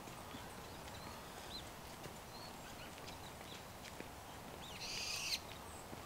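Wild songbirds in a fruiting persimmon tree giving faint, short high chirps and calls over a steady low hiss, with one brief, louder harsh call about five seconds in.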